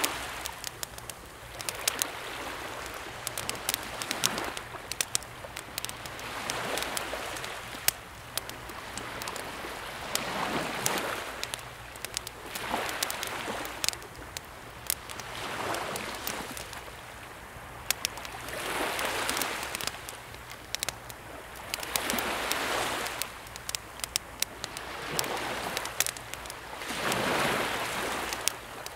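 Gentle sea waves washing in and drawing back every two to three seconds, with a wood campfire crackling and popping over them in sharp, irregular snaps.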